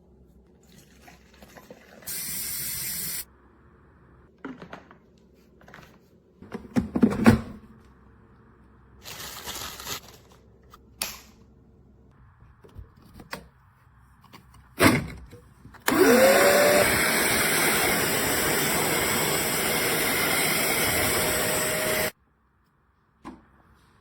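Handling knocks and a short burst of noise, then the BISSELL Little Green portable upholstery cleaner's motor switching on with a rising whine, running loud and steady for about six seconds, and cutting off suddenly.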